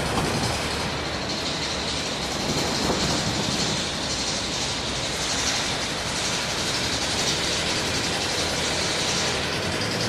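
Rivet hammer generator running with a dense, steady mechanical rattle and hiss.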